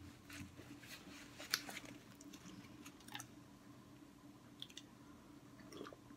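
Faint chewing of food, with a few sharp mouth clicks scattered through it; the loudest comes about a second and a half in.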